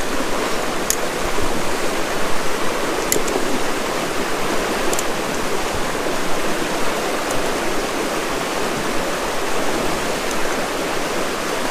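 Shallow mountain river running over stones close by: a steady, even rush of water.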